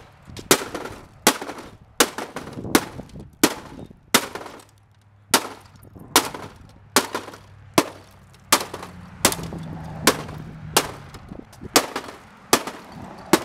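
A claw hammer striking a flat-screen TV's screen and plastic frame over and over, about eighteen blows roughly three-quarters of a second apart, cracking and breaking off pieces of the screen and bezel.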